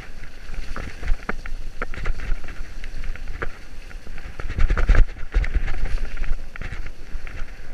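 Mountain bike descending a rough, muddy dirt trail, heard from a camera on the bike: wind rushing over the microphone, tyre noise and rattling knocks from the bike over bumps, loudest about five seconds in.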